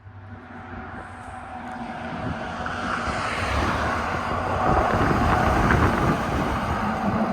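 An approaching train: a locomotive's low rumble and rolling noise that cut in at once and grow steadily louder over the first five seconds or so, then hold.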